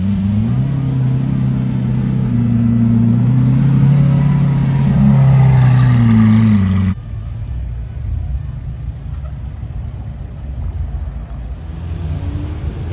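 Lamborghini Aventador's V12 engine revving lightly as the car pulls away. The note rises, holds for several seconds, then eases off and cuts off abruptly about seven seconds in, leaving a quieter low rumble of cars.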